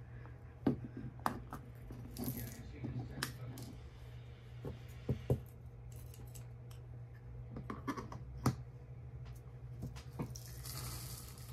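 Rhinestones tipped from a small clear plastic box and spread across a rhinestone template, rattling and clicking. Scattered sharp clicks run through it, with a short hissing rush of stones about two seconds in and another near the end.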